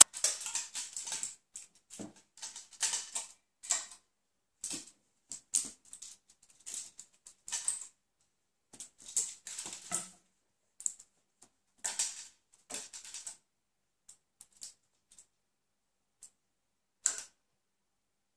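A kitten scrabbling and rolling on a tiled floor while batting at a dangling toy: irregular clicks, scratches and rustles in quick clusters, thinning out to a few scattered ones after about 13 seconds.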